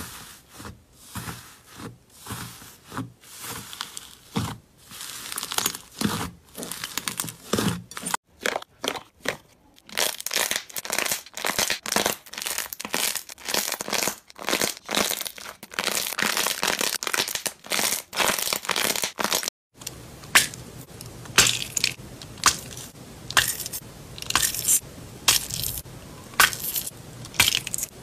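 Slime being squeezed, pressed and stretched by hand, giving a quick run of short clicks and pops. The sound drops out briefly about two-thirds of the way through, then comes back as separate squeezes about twice a second.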